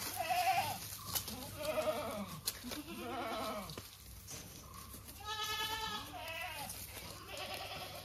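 Goats bleating, about six wavering calls of differing pitch, each lasting under a second.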